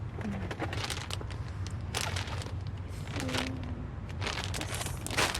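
Rustling and scattered light clicks of things being handled, over a low steady hum, with a brief low voice-like hum about three seconds in.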